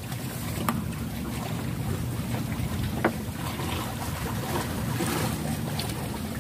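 Wind buffeting the microphone over a steady low rumble, with two faint clicks about a second and three seconds in.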